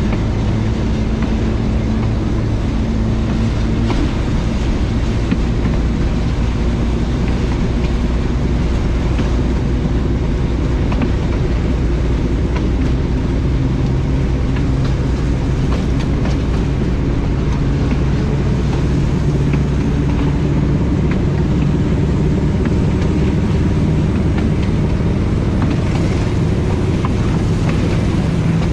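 Diesel engine of Pakistan Railways locomotive HBU20 running under power, heard from inside the cab, with the rumble of wheels on rail. Its note steps up in pitch about halfway through and again near the end as the train gathers speed.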